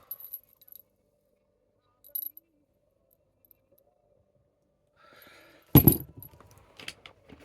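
Fridge magnets clicking and clinking against each other as they are handled in a box, with a few light knocks and one louder knock about six seconds in.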